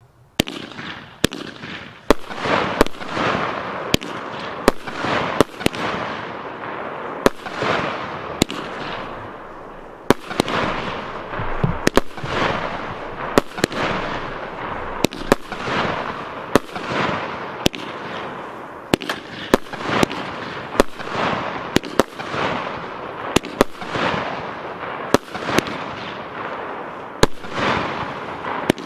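A 25-shot, 30 mm consumer firework battery (Piromax PXB2309 cake) firing in sequence: sharp reports about one to two a second, each followed by a noisy burst that fades within a second or so.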